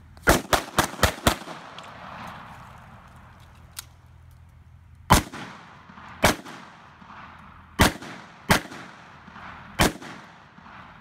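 Pistol firing: a quick string of five shots as cover fire, then five single shots spaced one to one and a half seconds apart.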